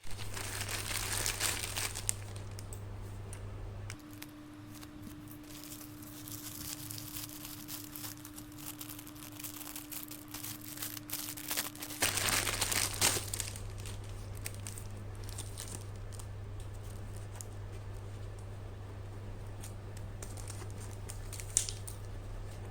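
Plastic packaging crinkling and tearing as the package is opened, loudest in the first couple of seconds and again about halfway through, with a faint steady hum in between.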